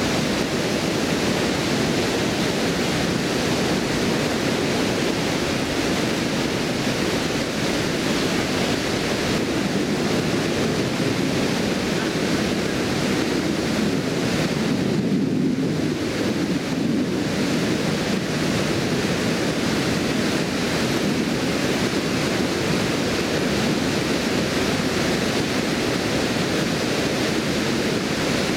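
Water pouring over a stone weir and rushing down the river below it: a steady, unbroken white-water noise. The hiss thins briefly about halfway through.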